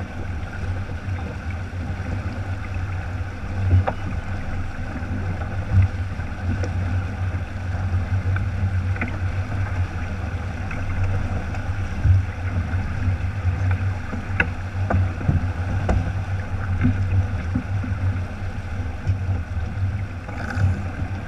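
Steady wind buffeting the microphone and water rushing along the hull of a heeled sailing keelboat under way, with a few faint clicks scattered through.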